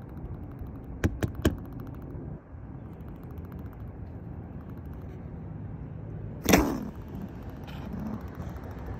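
Three quick sharp knocks about a second in, then one louder knock about six and a half seconds in, over a steady low background rumble.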